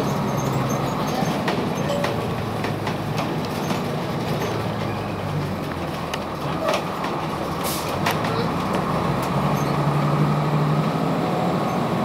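Cummins ISC inline-six diesel of a Blue Bird CS transit bus running, heard from inside the passenger cabin, with a steady low drone and short clicks and rattles from the interior.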